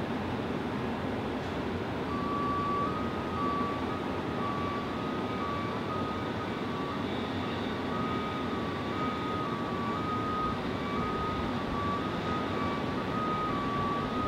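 Steady jet aircraft engine noise. From about two seconds in, reversing beepers at two slightly different pitches beep unevenly, out of step with each other.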